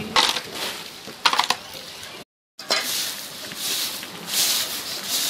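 Wet slush on a street being scraped with a hand tool: repeated scraping, crunching strokes. The sound drops out briefly a little over two seconds in.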